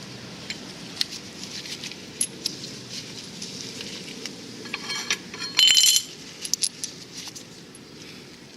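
Metal tools and small parts clinking and tapping during brake caliper work, with one louder ringing metallic clink a little over five and a half seconds in, over a steady low hum.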